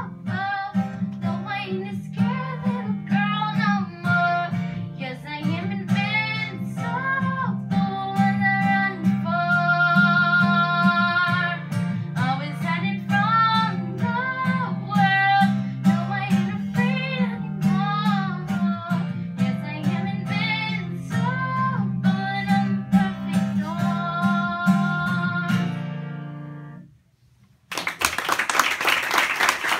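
A young girl singing with her own strummed acoustic guitar, the song ending about 27 seconds in. After a brief pause an audience starts applauding near the end.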